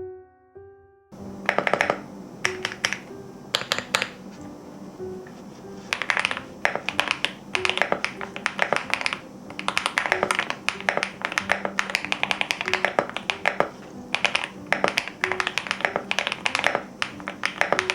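Typing in quick bursts of clicks on a MECHA-08 mechanical keyboard with Hyacinth V2U switches and X-era keycaps, over soft background music. A few piano notes play before the typing starts about a second in.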